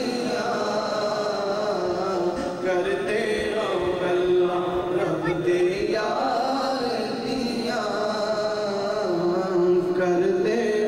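Unaccompanied male devotional singing into a microphone, in a chanting style with long held notes.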